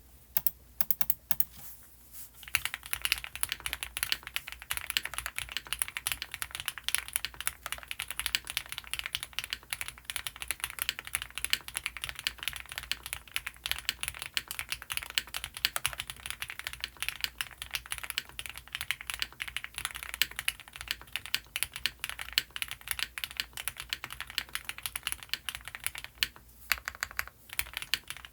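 Custom mechanical keyboard (Owlab Mr.Suit with lubed Gateron CJ linear switches, GMK keycaps and EPT plate foam) being typed on: a few single keystrokes, then fast continuous typing from about two seconds in, with a brief pause near the end.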